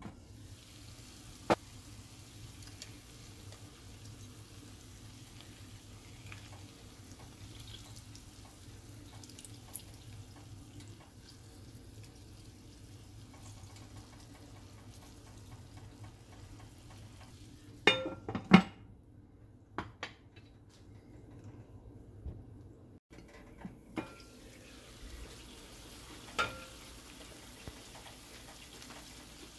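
Cherry tomatoes and a cauliflower steak simmering in a frying pan with a faint, steady sizzle. A few sharp clinks of the pan lid and kitchen utensils against the pan break in, the loudest a quick cluster of knocks a little past halfway.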